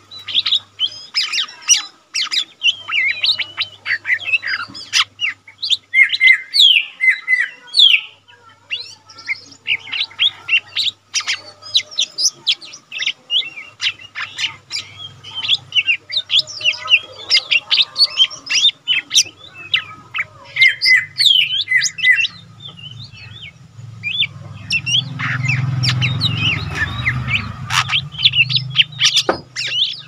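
A cucak ijo mini, a leafbird, sings a rapid, varied stream of chirps and twittering notes almost without a break. A low rumble swells under the song in the last few seconds.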